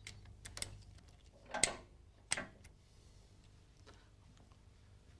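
Sharp metallic clicks from a wrench on the cylinder head bolts of a Rover 200/400 diesel engine, four in the first two and a half seconds, then a few faint ticks. The bolts are being brought to 70 Nm one after another in the tightening sequence.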